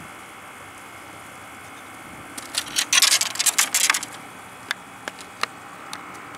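Rough scraping and rubbing noises: a loud, dense cluster of irregular rasping clicks about two and a half seconds in, lasting a second and a half, then a few single sharp clicks over a faint steady background hiss.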